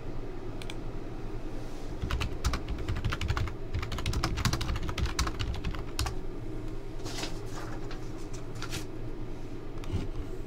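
Typing on a computer keyboard: a quick run of keystrokes from about two seconds in until about six seconds, then a few scattered clicks, over a steady low hum.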